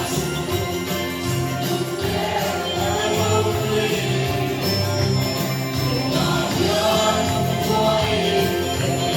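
Music with a moving bass line, singing and jingling percussion like bells or tambourine.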